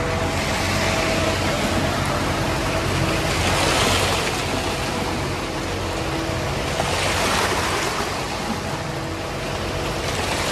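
Concrete mixer truck running with its drum turning while wet concrete pours down the chute into the discharge pipe: a steady engine sound under a rushing, sloshing wash that swells twice, about four and seven seconds in.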